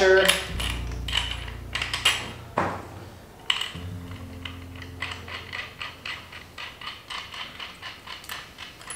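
A metal washer and a small pneumatic wheel's hub being worked onto a bolt by hand: scattered metallic clicks and knocks, then quick, even ticking at about four ticks a second.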